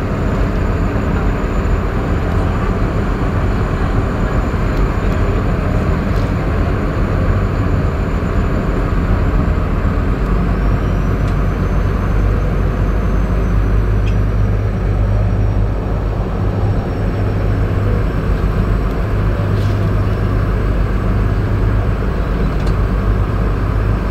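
Boat engine running steadily with a low hum, heard from inside the cabin, under the rushing noise of rough sea and wind against the hull.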